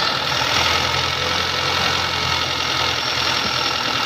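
Honda CR-V engine idling steadily, freshly started with a metal-treatment additive just added to the oil to quiet a ticking valve train.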